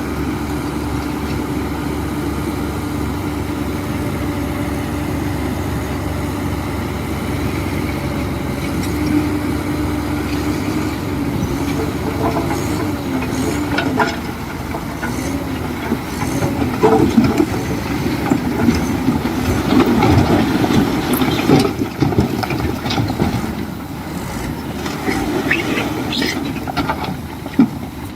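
Heavy diesel earthmoving machine engine running steadily. In the second half it grows louder and rougher, with irregular knocks and clanks as the machine works.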